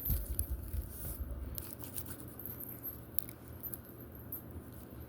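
Clear slime being squeezed and stretched by hand, giving scattered faint sticky clicks and pops. A low rumble on the microphone fills the first second and a half.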